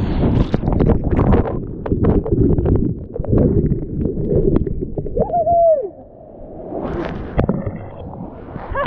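Whitewater rushing and splashing over a board-mounted action camera as a bodyboarder rides a breaking wave. The sound turns duller and quieter about six seconds in, as foam covers the lens.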